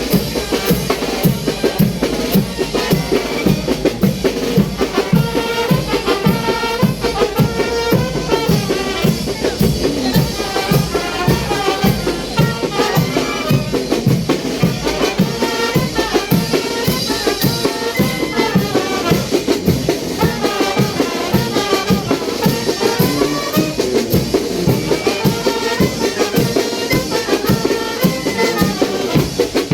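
Brass band (banda de viento) playing a chinelo son: brass melody over a steady, quick bass-drum and snare beat.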